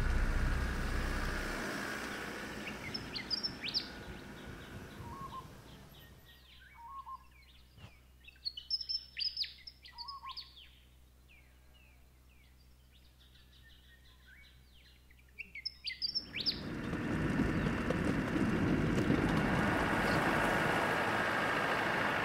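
A Land Rover Defender drives off and fades away over the first few seconds, leaving a quiet bush with scattered short bird chirps and calls, busiest about eight to eleven seconds in. About sixteen seconds in, the steady noise of the Defender driving on a gravel track comes in, engine and tyres on loose stones.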